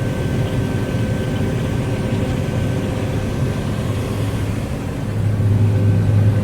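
Combine harvester running while cutting wheat, heard from inside its closed cab: a steady low drone with faint steady whines above it. It grows louder about five seconds in.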